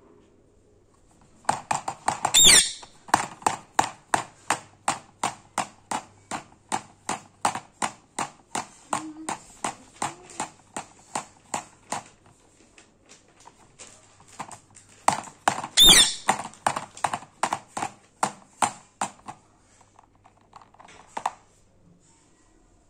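Indian ringneck parakeet pecking at a plastic pencil box with its beak: sharp clicking taps, about three to four a second, in two long runs. A brief shrill squawk comes at the start of each run, about two seconds in and again about sixteen seconds in.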